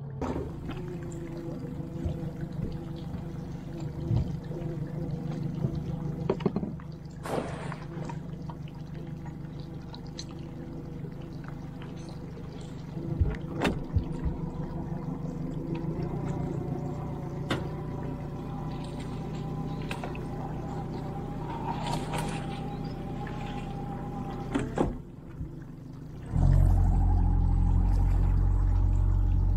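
Small aluminium boat's motor running steadily as the boat moves along the creek, with water splashing and trickling and a few knocks and rattles of gear on the hull. Near the end a much louder steady low rumble comes in.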